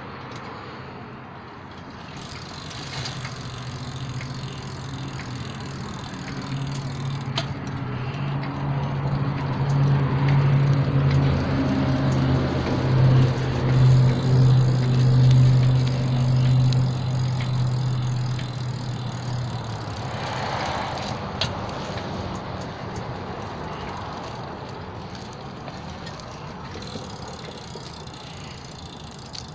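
Low, steady engine drone of a passing heavy vehicle, growing louder for several seconds and then fading away.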